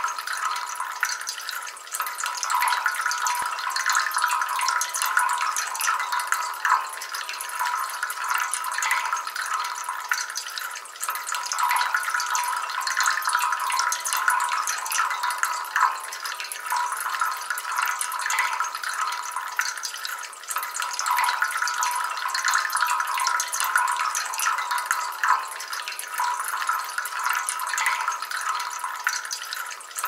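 Water from a small metal tiered cascade fountain trickling down from one leaf-shaped cup to the next into a rock-filled basin, a steady trickle flecked with small splashes.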